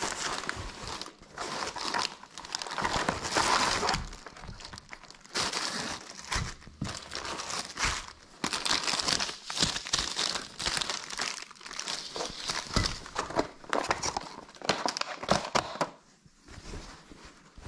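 Canvas tote bag rustling and plastic grocery packaging crinkling as groceries are unpacked by hand, with an occasional light knock as items are set on a wooden board. The crinkling comes in uneven spells with short pauses.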